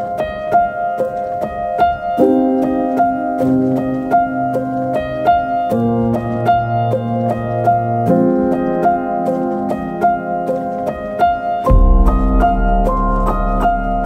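Instrumental background music: a piano plays quick, evenly repeated notes over held chords that change every two to four seconds. A deep bass comes in near the end.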